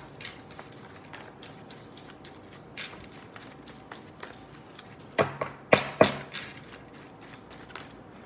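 Tarot cards being shuffled and handled by hand: a soft run of faint card flicks and ticks, with four sharper snaps or taps about five to six seconds in.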